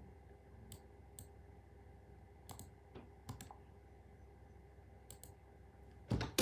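Scattered sharp clicks of buttons being pressed, irregular and about nine in all, then a louder low thump near the end.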